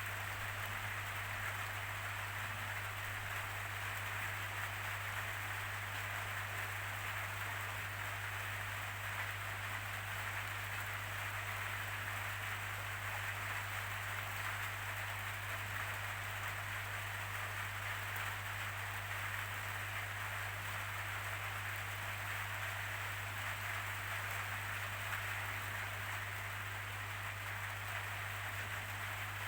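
Steady rainfall, an even hiss of rain with no change in strength, over a constant low hum.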